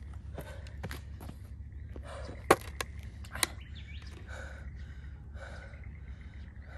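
A man breathing hard and panting, out of breath from walking uphill, his breaths coming about once a second. A few sharp knocks in the middle, the loudest about two and a half seconds in.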